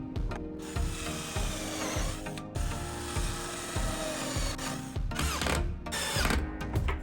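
A power tool working wood in two runs: one of about two seconds near the start and a shorter one about five seconds in. Background music plays underneath.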